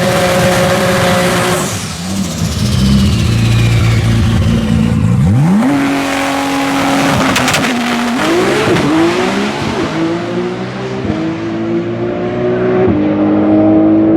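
A race car engine running hard, with a falling whistle early on and then a sharp rise in pitch about five seconds in. Several further steps in pitch follow, like gear changes under acceleration.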